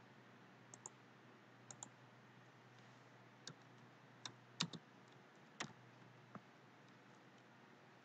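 About ten sharp, separate clicks of a computer mouse and keyboard keys, two quick pairs in the first two seconds, then single clicks with the loudest near the middle, over a faint low hum.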